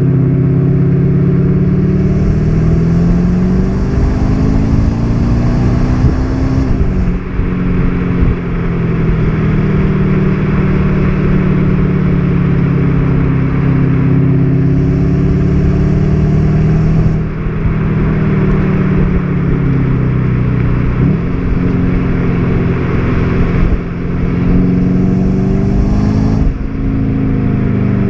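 VW Golf 7 GTD's 2.0-litre turbodiesel, its note shaped by the Sport and Sound package's sound actuator, pulling through the gears. The engine note climbs under acceleration and drops off sharply at each of several gear changes, with a hiss rising over it during the harder pulls.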